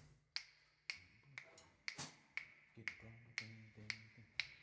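Faint finger snaps counting in the tempo, evenly spaced at about two a second, with faint low tones sounding under the last few.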